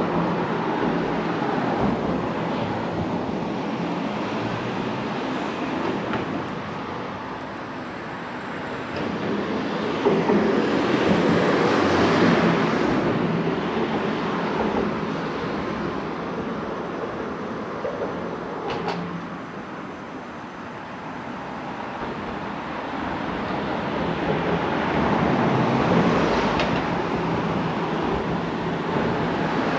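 Road traffic passing on a busy city street: a steady rumble of cars that swells as vehicles go by, loudest about ten to thirteen seconds in and again near twenty-six seconds, with a single sharp click a little before twenty seconds.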